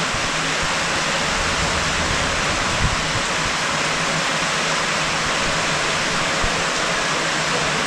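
Heavy, steady downpour of rain, an even dense hiss, with two soft low thumps in the middle.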